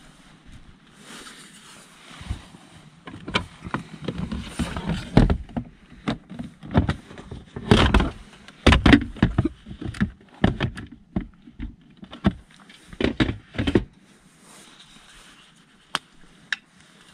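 Soft bags and bedding rustling as they are shifted, then a run of sharp knocks and clunks as a portable gas camping stove and its metal lid are handled and set down.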